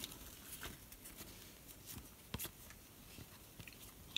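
Panini Prizm basketball cards being slid off a stack one at a time by hand: faint scattered rustles and light clicks, with a sharper click about two and a half seconds in and another at the end.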